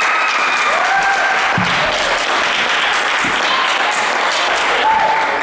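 Audience applauding steadily, with a few voices calling out over the clapping, as a student receives a new belt.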